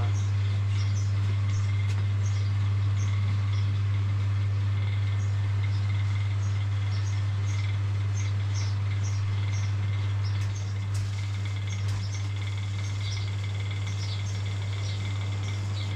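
A steady low mechanical hum, with small birds chirping repeatedly over it; the hum drops slightly about ten seconds in.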